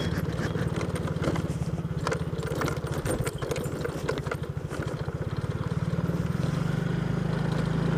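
Motorcycle engine running steadily at low speed, ridden over a rough dirt road, with a rapid low pulsing from the engine.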